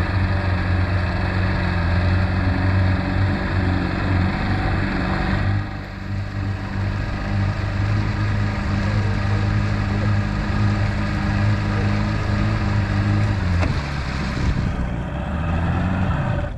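Boat outboard motor running at low speed while the boat is driven up to its trailer, steady, a little quieter from about five seconds in; near the end the engine note drops as the throttle comes back.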